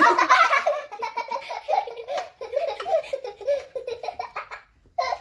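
A child laughing in a long run of short bursts that stops about four and a half seconds in.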